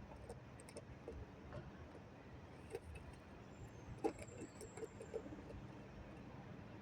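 Pigeons cooing faintly, a few short low coos about two-thirds of the way in, with scattered light clicks over a steady low rumble.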